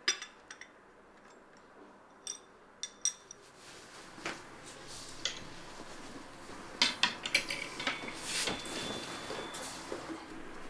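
A china cup and saucer clinking several times, then the rustle of a cotton shirt being pulled on, with scattered light clicks and knocks.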